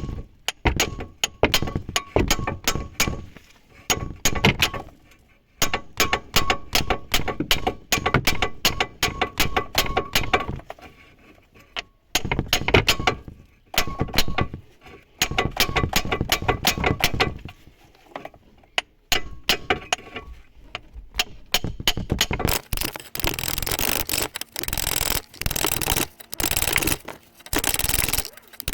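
Rapid hammer blows on the outer CV joint of a SEAT Ibiza 6L driveshaft, several a second in runs with short pauses and a light metallic ring. The joint is being driven off the shaft's splines and is stuck very hard.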